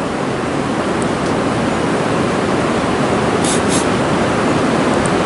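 Steady rushing of a river current running over rocks and shallow riffles, with two brief faint high sounds about three and a half seconds in.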